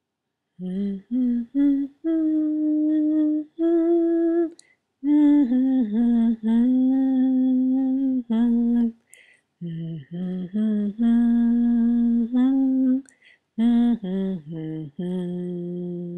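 A voice humming a slow, wordless tune: a string of short notes and longer held ones, with brief gaps about five, nine and thirteen seconds in.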